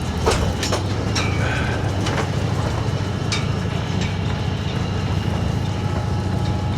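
Steady low rumble of a sailboat underway, with a few faint clicks and short tones over it.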